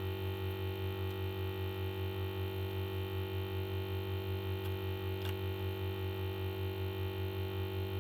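Steady electrical hum with a slight, regular pulsing in loudness, and a faint click about five seconds in.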